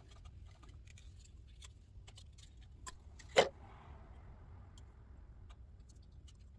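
Small handling clicks and ticks as tools and parts are picked up and set down, with one sharp knock about three and a half seconds in.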